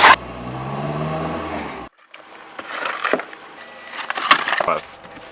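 Car engine revving for about two seconds, then cutting off abruptly. Scattered scrapes and knocks follow.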